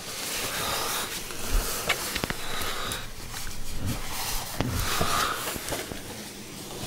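A person breathing, with a breath coming every couple of seconds, against rustling and a few sharp clicks.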